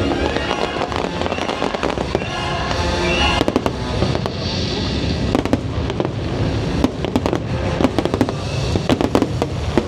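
Fireworks bursting, with many sharp pops and quick crackling clusters, over the show's music soundtrack.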